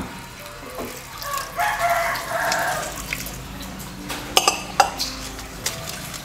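A rooster crows once, lasting about a second and a half. A few seconds later come two sharp clinks, a spoon striking the aluminium mixing bowl.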